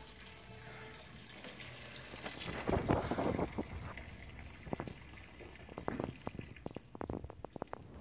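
LG top-loading washing machine filling its tub with water: a steady rush of running water that swells about three seconds in, with a run of sharp ticks and drips in the second half.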